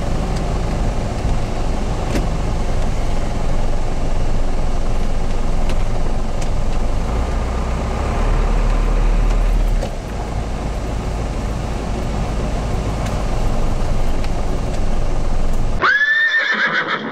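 Steady low rumble heard from inside a vehicle. Near the end it gives way to a short, high-pitched cry that rises and then holds before cutting off abruptly.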